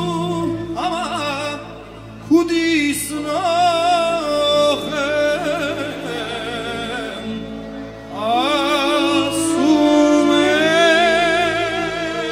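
A male vocalist singing an Armenian folk song live into a microphone, long ornamented phrases with vibrato, backed by a band with sustained low notes underneath; the voice drops out briefly between phrases twice.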